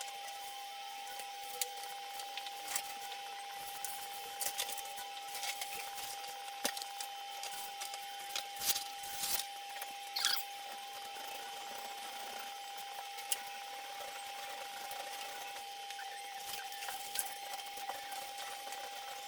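Light, scattered handling noises of hanging wallpaper: small clicks, taps and rustles, clustered in the first half. A steady high whine sits underneath throughout.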